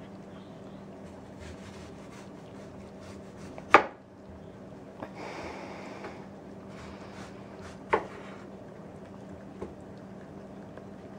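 Several cats eating cheese off a plate on the floor: small wet chewing and licking clicks throughout, with two sharp knocks about four seconds apart, over a steady low hum.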